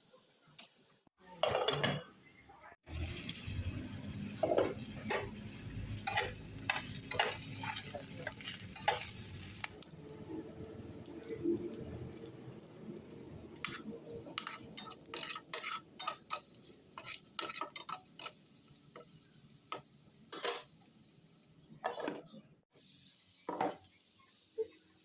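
A spoon stirring and clinking against a cooking pan while food sizzles, with many sharp scrapes and taps. The sizzling hiss is strongest in the first third, and the sound breaks off abruptly a few times.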